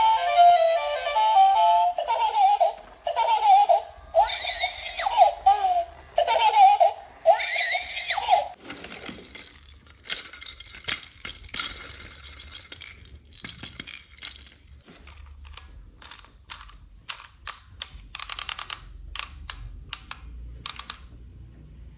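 High-pitched, giggly, voice-like toy sounds in short phrases, stopping about a third of the way in; then a run of sharp clicks and crinkles of plastic toy packaging and parts being handled, thinning out toward the end.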